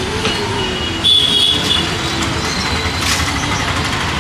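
Steady road traffic noise of a busy city street, with a short high-pitched tone about a second in.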